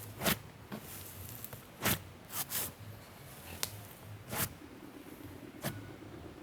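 Icy-textured cloud slime squished and stretched close to the microphone, giving off about seven short, sharp crackles and pops at irregular intervals: the slime's sizzles.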